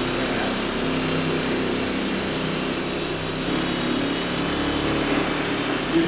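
Electric orbital buffer with a microfiber bonnet running steadily against a refrigerator door, buffing off dried carnauba wax.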